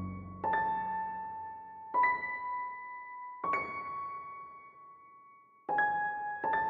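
Background music: slow, single piano-like keyboard notes, five in all, each struck and left to ring out and fade.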